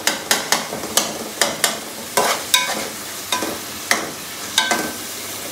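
A wooden spatula stirring a frying onion-tomato masala in an aluminium karahi, giving a quick, irregular run of scrapes and knocks against the pot over a steady sizzle.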